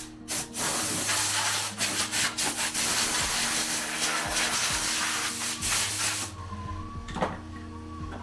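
Sanding on car bodywork: a rough rubbing noise that stops about six seconds in, with quiet background music underneath.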